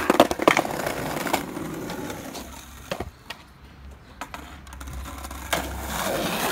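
Skateboard wheels rolling over interlocking paving stones, rattling over the joints, with several sharp clacks of the board in the first second and a half and another about three seconds in.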